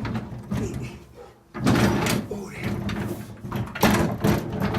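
Knocks and scraping of a heavy item being shifted about: a sudden loud clatter about a second and a half in and another just before the end.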